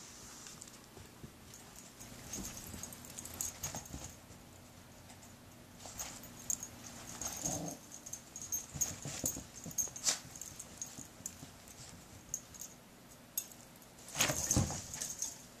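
Chihuahuas romping with a kitten on carpet: scattered scuffles and paw movements, with one short dog vocalisation about halfway through and a louder thump near the end.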